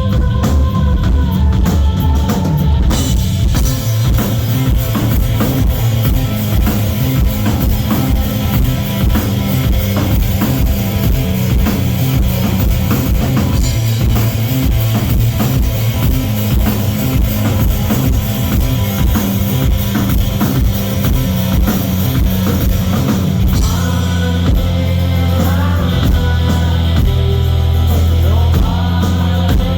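Live rock band playing an instrumental stretch, with the full drum kit driving a fast, steady beat under bass and guitar. About three-quarters of the way through the drumming drops back, leaving a held bass and guitar lines.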